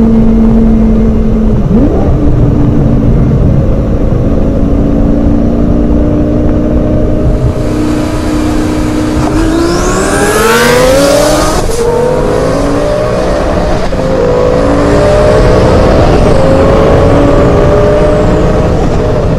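Twin-turbo Lamborghini Gallardo V10 cruising steadily, then about ten seconds in accelerating hard: the engine pitch climbs with a high whine rising alongside it. After a brief break near the twelfth second, the engine pulls on at higher revs, its pitch still slowly rising.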